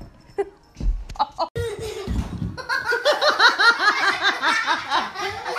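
A person laughing hard in a rapid run of short ha-ha pulses that starts about two and a half seconds in, after a couple of dull thumps.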